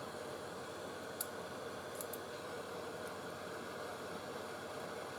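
Hot air rework station blowing a steady hiss of air while heating a phone's back glass, with a few faint ticks about a second and two seconds in.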